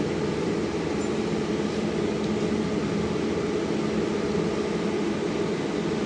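Repaired automatic welding machine running on test with a steady mechanical hum and one constant tone.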